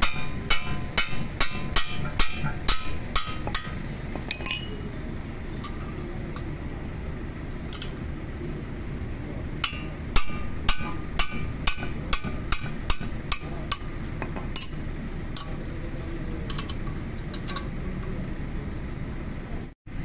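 Metal hammer striking a combination wrench fitted to a bolt on a van's wheel hub, sharp ringing clinks in quick runs of about two to three blows a second, to break the bolt loose. The blows come in two runs, at the start and again about ten seconds in, with scattered single strikes between and after.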